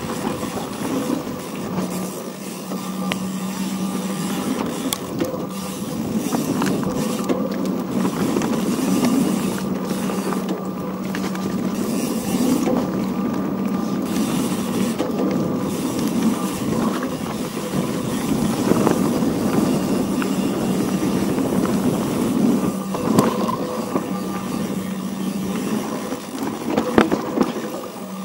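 Off-road vehicle's engine running at a steady, unchanging pitch on a trail, with rattles and scattered knocks over it; the sharpest knock comes near the end.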